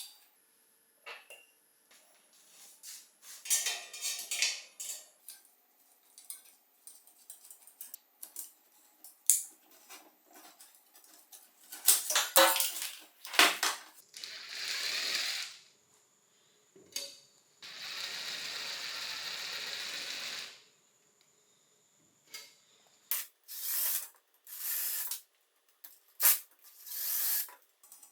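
Hand tools and metal bicycle parts clicking, clinking and scraping as the front wheel's hub nuts and spoke nuts are taken off, with a few louder metal knocks past the middle. Two stretches of steady hissing noise, the longer one lasting about three seconds.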